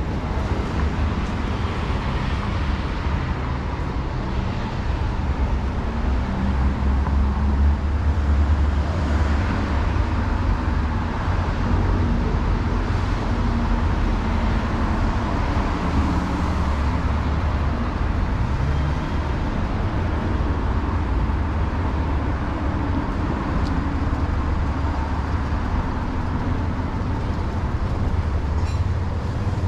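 City street traffic: the steady rumble of road vehicles' engines running and passing.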